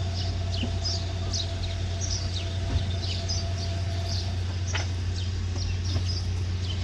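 Small birds chirping in quick, short falling notes, about two a second, over a steady low hum. A thin steady tone in the background stops about four seconds in, and a few faint clicks come here and there.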